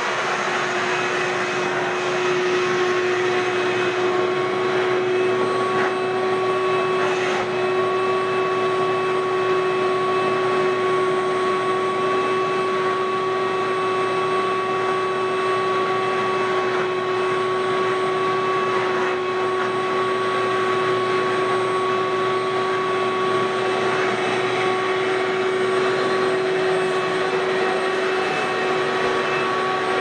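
Ridgid WD1450 14-gallon wet/dry shop vacuum running steadily, pulling air through a carpet nozzle on its hose. A steady whine sits over the rushing of the airflow.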